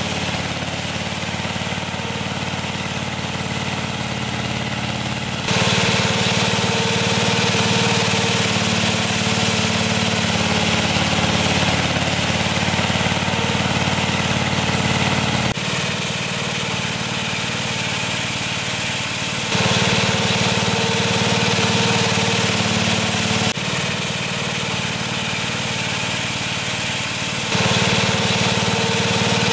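Small petrol engine of a Westermann ride-on cleaning machine running steadily at working speed. Its loudness and tone shift suddenly every few seconds.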